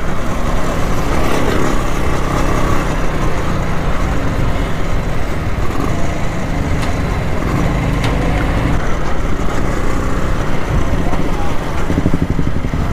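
Rajdoot 175's single-cylinder two-stroke engine running steadily while the motorcycle is ridden, mixed with rushing wind on the microphone.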